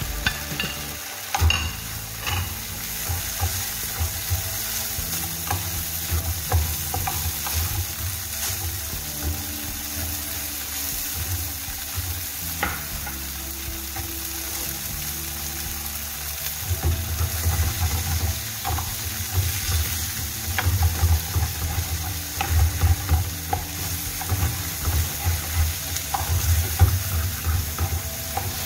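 Diced tofu and onion frying with a steady sizzle in a metal pan, a wooden spoon scraping and knocking against the pan as it is stirred. The stirring gets louder and busier in the second half.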